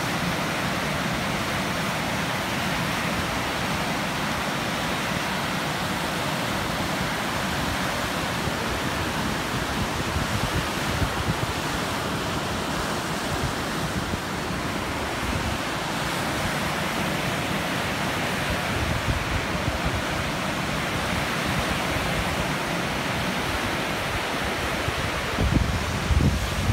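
Large waves breaking on the Lake Superior shore in gusty wind, a steady rush of surf. Near the end, gusts buffet the microphone with low rumbling.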